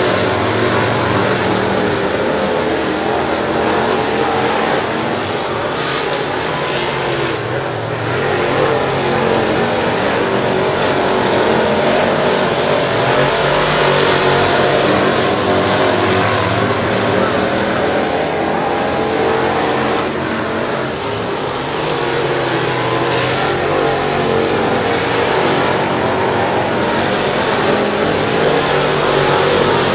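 Several crate-engine V8 dirt late model race cars running laps together on a dirt oval. The engines swell and fade as cars come past, over a continuous drone from the rest of the pack.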